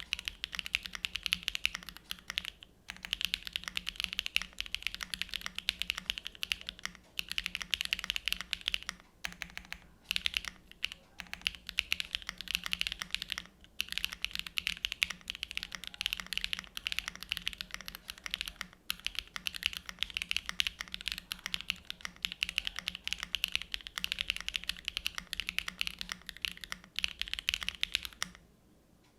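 Continuous fast typing on a Neo Ergo mechanical keyboard with SWK (Owlab) Neon switches on a gasket-mounted polypropylene plate and PBTfans X-Ray PBT keycaps: a dense run of key clacks with a few brief pauses, stopping shortly before the end.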